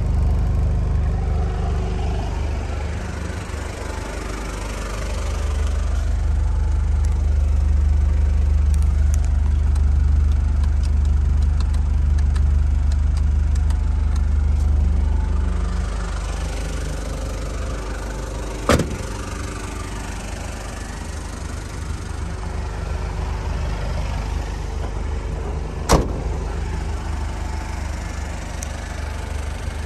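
Mazda Bongo Friendee's WL-T 2.5-litre four-cylinder turbo-diesel idling with a steady low hum. Two sharp thumps sound over it about seven seconds apart.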